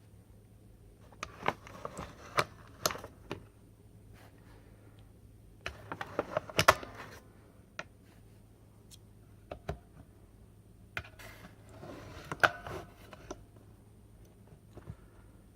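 Clicks, scrapes and rattles of Samsung 30Q 18650 lithium-ion cells being handled and pressed into the spring-loaded slots of a Miboxer C4-12 battery charger, in three bursts.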